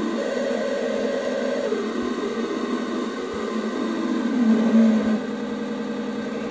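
A five-oscillator DIY square-wave synth built into a circuit-bent toy: several square-wave tones buzzing together in a dense drone, their pitches shifting as its pitch knobs are turned.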